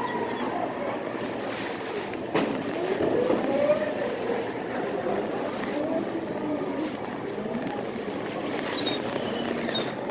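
Go-karts running on the track, their motors' pitch rising and falling as they speed up, slow down and pass. There is a sharp knock a little over two seconds in.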